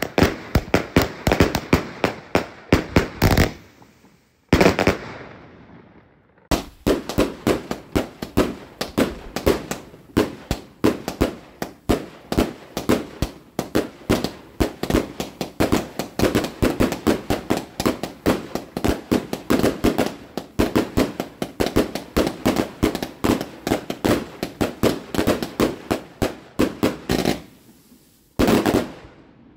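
A 70-shot, 20 mm firework cake firing shots in rapid succession, a fast string of sharp bangs several a second. It breaks off in a brief lull a few seconds in, fires on steadily, then pauses again and gives a last short flurry near the end.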